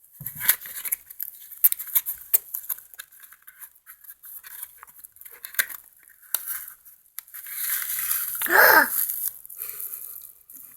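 Plastic packaging rustling and crinkling, with irregular clicks and light knocks of small parts being handled and unwrapped. A brief, louder pitched sound breaks in about eight and a half seconds in.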